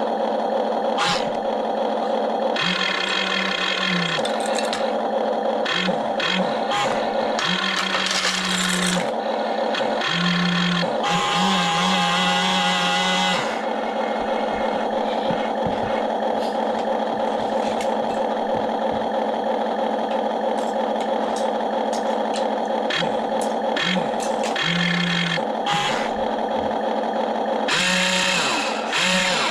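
Remote-control toy excavator's small electric motors whining in repeated short bursts, some gliding up and down in pitch, over a steady mechanical hum, with scattered light clicks.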